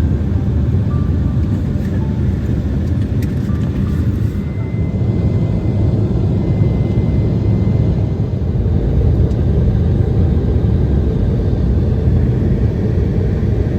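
Steady, loud low rumble of a vehicle in motion.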